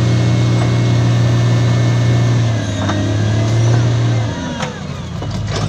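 Heavy diesel machinery engine running loud and steady under load, easing off about four seconds in, followed by a few metallic knocks and squeals.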